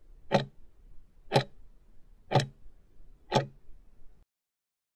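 Clock-tick sound effect of a countdown timer: four sharp ticks one second apart, stopping as the timer runs out at zero.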